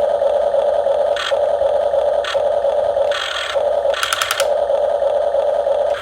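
Steady whine of the small electric motors and gearing of radio-controlled model construction machines, cutting out and back in several times, with a short high buzz about four seconds in.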